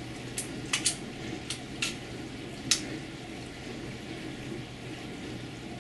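A handful of short, sharp clicks, about six in the first three seconds, over a steady low hum of room noise.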